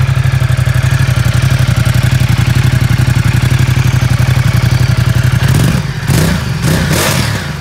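Ducati XDiavel's 1262 cc L-twin engine idling after a cold start, a steady pulsing beat heard close to the twin exhaust. Near the end a few short, louder bursts cut across the idle.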